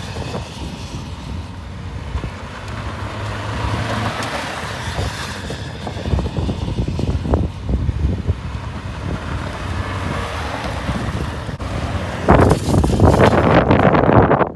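Jeep Compass SUV drifted over loose dirt, its engine running under load and its tyres scrabbling through dirt and gravel, heard from outside the car. About twelve seconds in, wind starts buffeting the microphone loudly.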